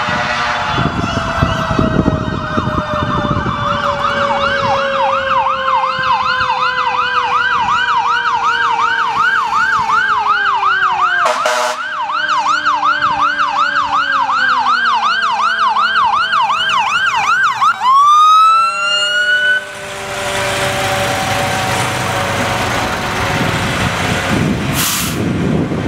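Fire engine's emergency siren approaching: a falling wail, then a fast yelp of about three sweeps a second, with a lower siren tone gliding steadily down underneath. It ends in a loud rising sweep a little over two-thirds of the way through. Then the siren stops and the truck rumbles past.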